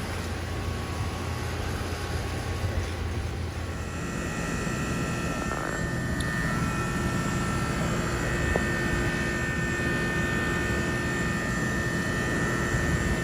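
Outdoor air-conditioner or heat-pump unit running: a steady hum of the compressor and condenser fan, with a steady whine of several tones joining about four seconds in.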